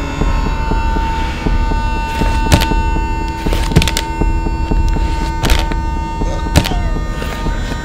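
Horror film score: a dark, droning hum with a sustained high tone, punctuated from a couple of seconds in by sharp percussive hits, some doubled, every second or two.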